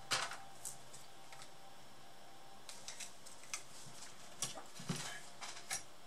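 Light clicks and taps of a laptop motherboard and small tools being handled on a rubber work mat: one sharp click at the start, then scattered lighter taps that bunch up in the last two seconds.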